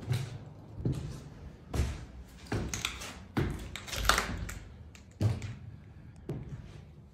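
Footsteps on a debris-strewn stairway at a steady walking pace, about eight thudding steps, with gritty scraping of grit underfoot around the middle.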